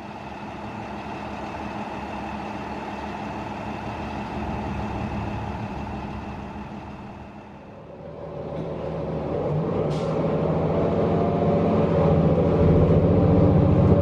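A New Flyer XD40 transit bus's Cummins L9 diesel engine idling steadily, heard from outside. About eight seconds in the sound switches to inside the bus as it pulls away: the engine and Allison automatic transmission grow louder and change pitch under load, with a brief sharp hiss about two seconds later.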